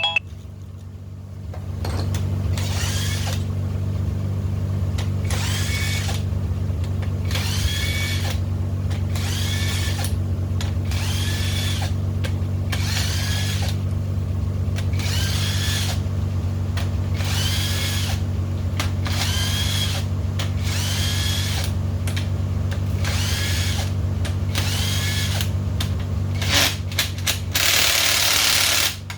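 A hand-held power tool run in short repeated bursts, about one every one and a half seconds, each with a pitch that rises and then falls, over a steady low hum. Near the end comes one longer continuous run.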